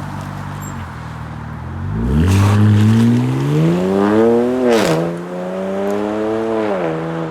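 BMW 335i's twin-turbo N54 inline-six with a muffler delete, pulling away: it idles, then revs up about two seconds in with a rising pitch. A gear change a little past halfway drops the revs, and it runs steadily before easing off near the end.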